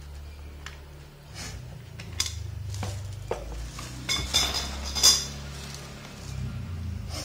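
Metal parts of a mini fuel pump kit, the fuel nozzle and hose fittings, clinking against each other and the tiled floor as they are handled and set down. There are a few light clicks, then a cluster of ringing metallic clinks about four to five seconds in.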